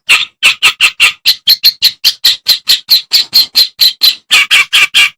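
Kerak basi (clamorous reed warbler) singing a fast, even run of short, scratchy notes, about five a second, that stops suddenly at the end.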